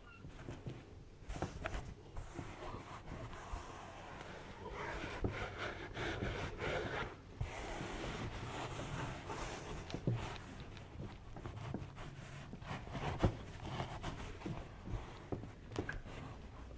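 Close-miked rubbing and rustling with many scattered sharp clicks and pops, in the style of chiropractic cracking sounds; the rubbing is densest a few seconds in, and one click about two thirds through is the loudest.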